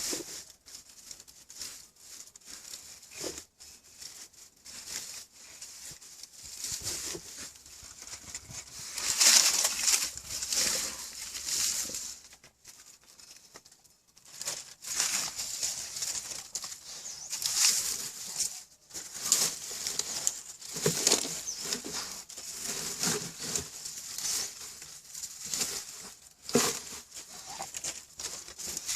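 A dog scratching and rustling as it hides a duck bone: irregular bouts of scraping and crinkling, louder in spells, with short pauses between.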